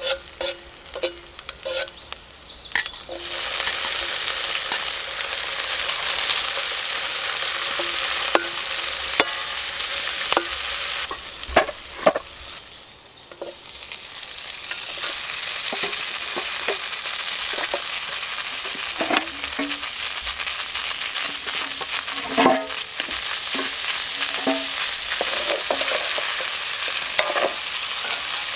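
Onion, garlic and tomato frying in oil in an aluminium wok, sizzling, with a metal spatula scraping and clinking on the pan. The sizzle swells about three seconds in, dies down briefly around the middle, then comes back, with scattered knocks as mud clam shells go into the wok.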